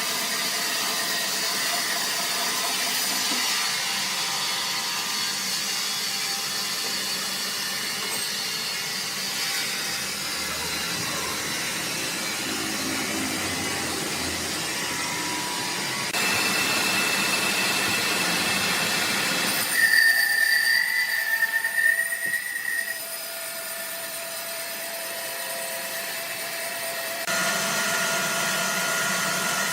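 Sawmill machinery running: a steady industrial din that changes abruptly a few times as the scene cuts, with a loud high-pitched metallic squeal about twenty seconds in.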